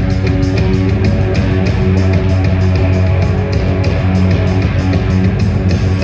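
Live band music: electric guitar and keyboards over heavy sustained bass and a steady, even beat.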